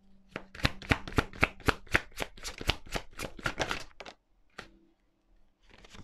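Tarot cards being shuffled by hand: a quick run of soft card slaps, about four or five a second, that stops about four seconds in, followed by a couple of single taps as cards are laid down.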